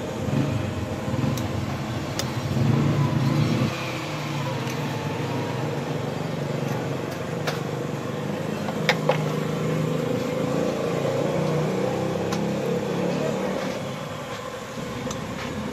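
Steady street background of traffic hum and general noise, with a few sharp, widely spaced metal clinks from utensils and a steel tumbler as eggs are handled.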